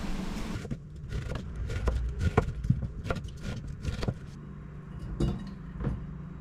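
Kitchen knife cutting an onion on a wooden cutting board: a run of irregular knocks from about a second in until about four seconds, then a couple of single knocks near the end, over a low steady hum.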